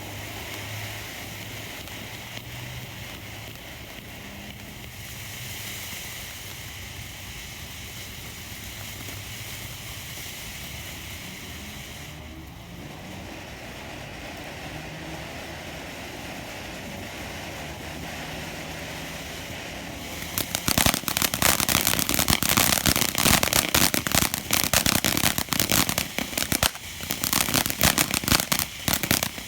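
Ground fountain firework spraying with a steady hiss, then breaking into loud, dense crackling for the last third before it cuts off.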